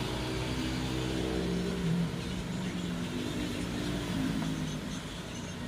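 A motor vehicle engine running, its pitch shifting up and down a few times.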